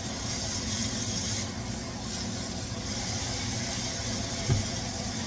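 Chicken and pineapple with its juice sizzling in a skillet while being stirred with a spatula, over a steady low hum; a brief thump about four and a half seconds in.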